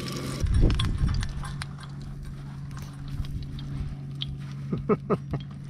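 Metal tongs clicking and knocking against a frying pan and plastic cutting board as cooked food is lifted out. The heavier knocks come about a second in, with sharp clicks scattered after, over a steady low hum.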